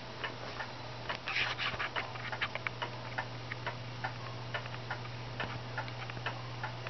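The brass pendulum movement of an 1891 Waterbury "Huntley" spring-driven parlor clock ticking, with even, rapid ticks several times a second. A faint steady low hum lies underneath.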